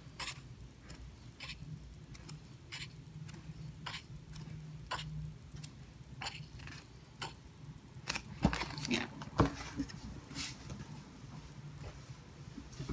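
Pages of a paperback coloring book being turned one after another, each flip a short papery swish. About two-thirds of the way through come two louder knocks as the books are handled on the desk.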